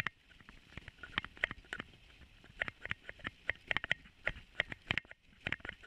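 Dog sled running over a snowy trail: irregular sharp clicks and creaks, several a second, from the sled frame and runners as they jolt over the snow.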